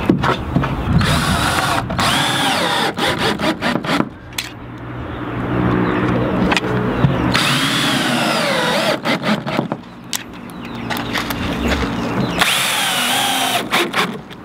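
Cordless 18-volt drill/driver driving screws into pine trim boards, in several separate runs. Its motor whine rises and dips in pitch with the trigger and the load, with short runs of sharp clicks between the runs.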